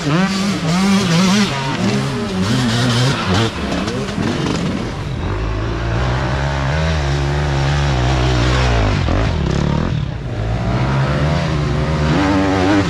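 Dirt bike engines revving, the pitch rising and falling with repeated throttle blips; from about five seconds in, a steadier, lower engine note takes over.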